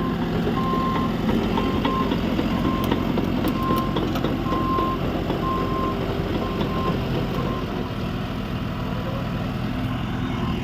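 Caterpillar bulldozer's diesel engine running under a steady rumble, with its reverse alarm beeping repeatedly as it backs.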